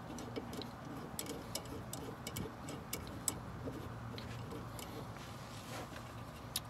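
Faint, irregular light clicks and taps of metal suspension parts being handled: the rear sway bar and its end-link hardware being moved into place.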